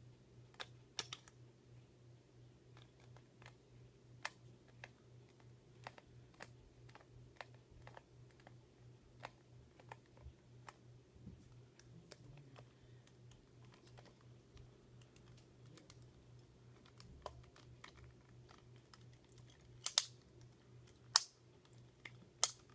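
Irregular faint clicks and taps of hands working at the battery compartment cover of a plastic iDog Pup toy dog to get it open, with a few sharper clicks near the end. A low steady hum underneath.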